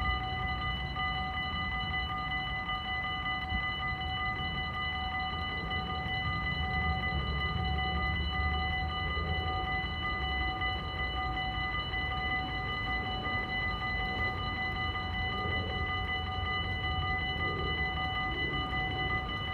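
Warning bells of a Dutch automatic half-barrier level crossing ringing continuously, a steady ringing of several tones, sounding while the barriers are down for an approaching train. A low rumble runs underneath, strongest a few seconds in.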